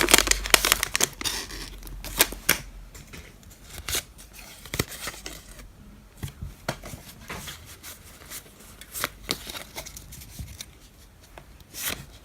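Foil Pokémon booster pack wrapper being torn open with some effort, loudest in the first second, followed by scattered crinkles and small snaps as the wrapper and cards are handled.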